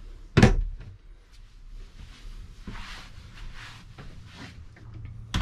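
A sharp knock about half a second in and another at the end, with soft shuffling and rustling between them.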